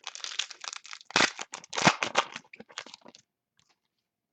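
Crinkling and crackling of plastic or foil as trading cards are handled, in quick irregular bursts that are loudest about a second and two seconds in and stop after about three seconds.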